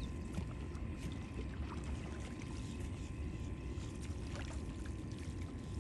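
Wind buffeting the microphone: a steady, fluttering low rumble with a few faint clicks.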